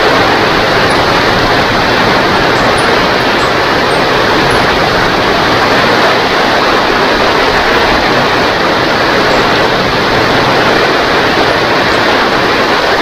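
Steady, loud rain: an even, dense hiss with no let-up.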